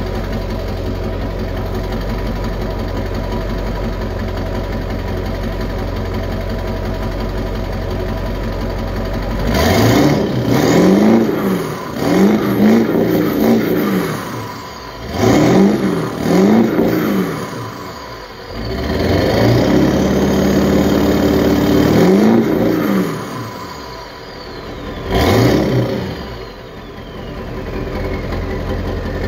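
1999 Ford 7.3-litre Power Stroke turbodiesel V8 running through a 4-inch turbo-back straight-pipe exhaust with dual turnouts. It idles steadily for about ten seconds, then revs in a series of throttle blips, one held for a few seconds, and settles back to idle with a high whistle falling in pitch.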